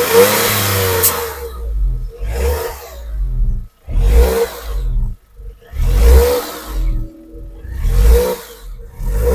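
Tata Punch's 1.2-litre naturally aspirated three-cylinder petrol engine being revved in repeated blips, roughly every two seconds, each rising and falling in pitch, and dropping back to a lower running sound between them.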